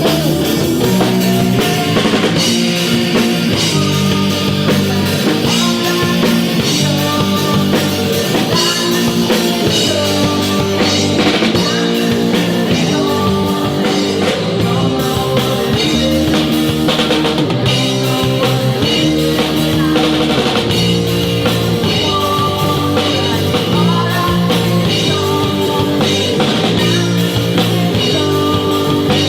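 Rock band playing: drum kit, electric guitar and bass in a steady, loud groove.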